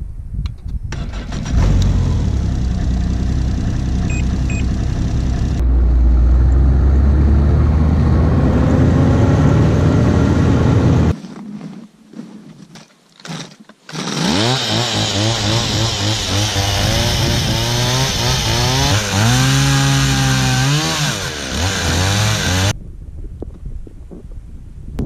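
Ski-Doo Skandic snowmobile engine starting about a second and a half in and running steadily. After a short lull it revs up and down several times.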